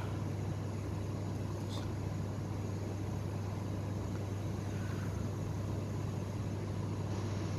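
A steady low machine hum with an even hiss over it, holding one level throughout, and a faint tick about two seconds in.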